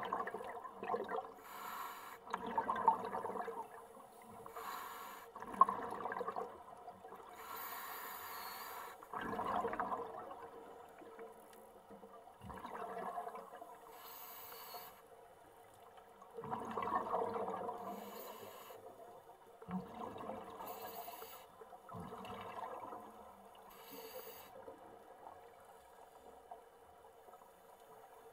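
Underwater scuba breathing: air hissing through a regulator and bursts of exhaled bubbles, recurring every few seconds.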